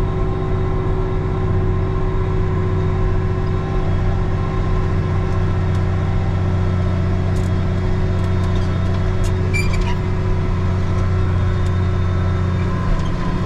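Farm tractor's diesel engine running steadily while pulling a loaded grain cart, a constant low drone.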